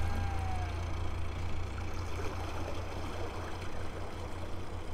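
Narrowboat diesel engine running steadily, a low, even hum. A short whistled note sounds at the very start.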